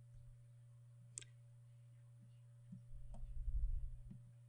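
Faint computer mouse clicks and key taps over a steady electrical hum, with a sharp click about a second in. A low rumbling thump swells from near three seconds in and dies away near the end.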